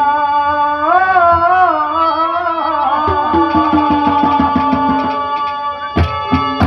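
Haryanvi ragni music: a harmonium holds steady chords under a sliding, wavering melody line. Quick hand-drum strokes join about three seconds in, and there is a sharp drum hit near the end.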